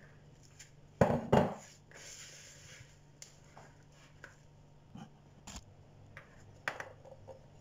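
Plate knocking against a plastic mixing bowl as desiccated coconut is tipped in and worked in with a spatula: two sharp knocks about a second in, then scattered lighter taps.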